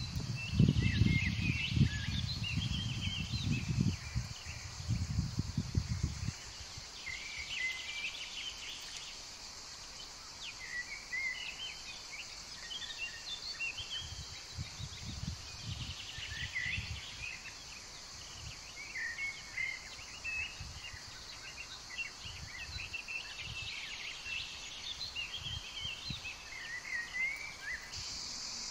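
Small birds chirping in short, scattered phrases over a steady high drone of summer insects (crickets or cicadas). Low rumbling thumps during the first six seconds are the loudest sound.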